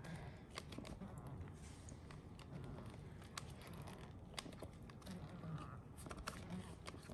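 VacuVin pineapple slicer being twisted down through a pineapple's flesh, giving faint, irregular small clicks and crunches as it cuts.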